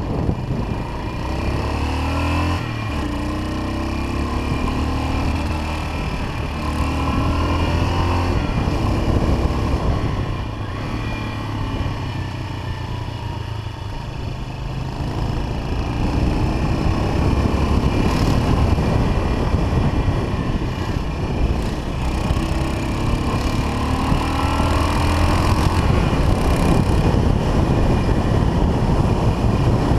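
1979 Yamaha XT500's single-cylinder four-stroke engine running under way, its pitch rising several times as the rider accelerates.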